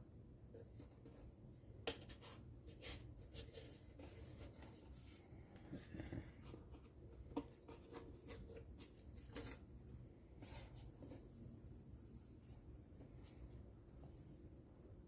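Faint handling sounds: light rubbing and small clicks as wooden ukulele parts are moved and fitted together by hand, with a sharper tap about two seconds in.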